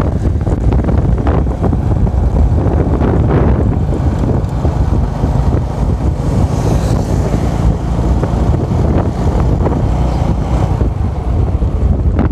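Wind buffeting the microphone: a loud, dense, gusting rumble with no clear engine tone.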